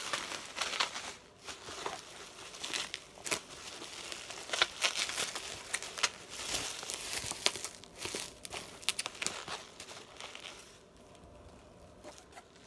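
Plastic bubble wrap crinkling and rustling as it is pulled apart and handled in a cardboard box, with many irregular sharp crackles; it dies down near the end.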